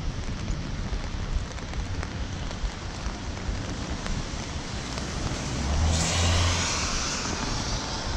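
Steady rain noise with wind buffeting the microphone, and a vehicle passing on the wet road between about five and a half and seven and a half seconds in, its tyres hissing on the wet surface.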